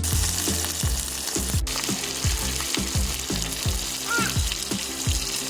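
Flour-coated fish frying in butter in a pan, a steady crackling sizzle.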